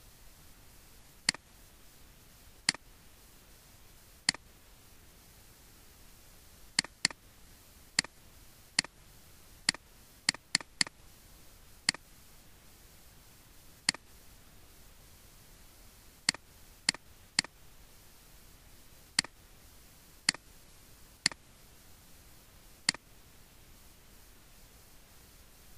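Computer mouse clicking: about twenty single sharp clicks, spaced irregularly a second or two apart, with a quick run of clicks near the middle, over a faint steady hiss.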